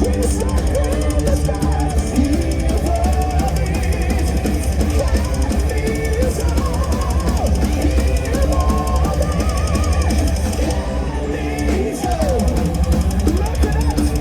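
Heavy metal band playing live: drum kit with bass drum and electric guitars, loud and continuous.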